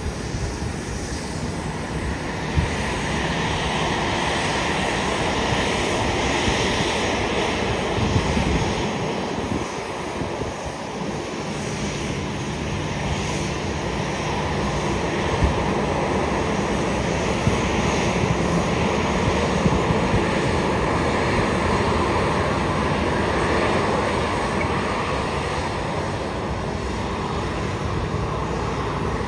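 Boeing 737 airliner's jet engines running at idle as it taxis: a steady, even noise with no sudden changes.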